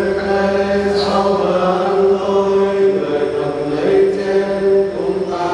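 A man's voice chanting a slow liturgical melody at Mass, with long held notes that step from one pitch to the next.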